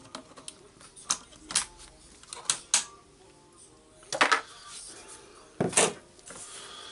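Sharp, irregular clicks and clacks of hand tools and small parts being handled on a wooden workbench, with the loudest clatters about four seconds in and again near the end.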